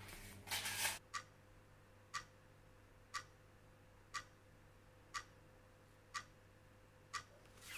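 A clock ticking faintly and evenly, once a second, after a brief burst of handling noise in the first second.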